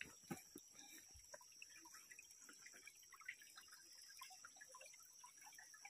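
Near silence, with faint scattered small ticks and clicks and a couple of slightly sharper clicks.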